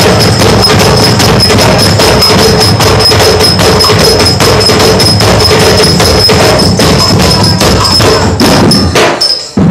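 A group percussion ensemble playing a fast, dense rhythm on a large drum and sharp wood-block-like clicks, recorded loud and crowded. A steady high tone sounds over the beat. The playing breaks off briefly near the end, then starts again.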